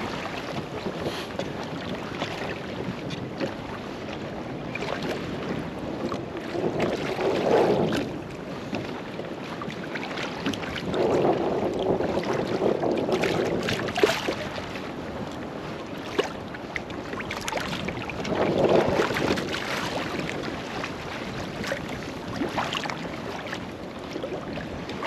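Wind buffeting the microphone and water lapping against a small boat drifting without its engine, swelling in three gusts. A few sharp knocks, the loudest about halfway through.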